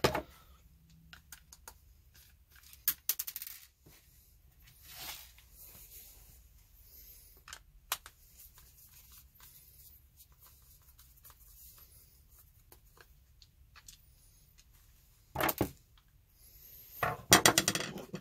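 Light clicks and taps of a screwdriver working screws out of the plastic housing of a Milwaukee M12 FUEL cordless ratchet, with small parts shifting. There are two louder rattling, scraping bursts of handling near the end.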